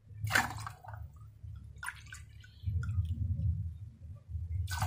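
Hpnotiq liqueur poured from its bottle into a stainless-steel jigger, with a few sharp clinks of glass and metal.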